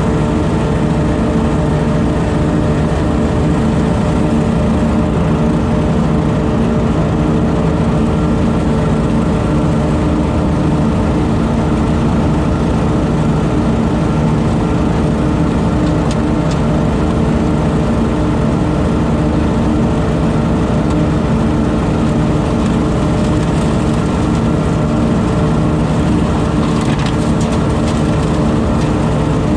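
Engine of a leaf-vacuum and mulching rig running steadily at constant speed, with no change in pitch or level.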